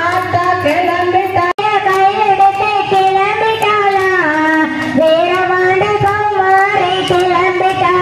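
A high voice singing a slow melody with long held notes that glide between pitches, broken by a very brief dropout about one and a half seconds in.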